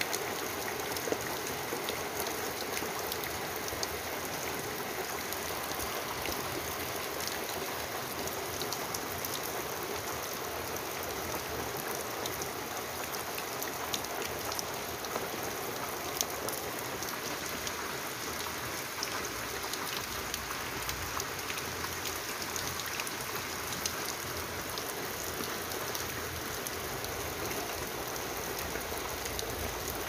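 Steady rain: an even hiss with many small, quick drop ticks throughout.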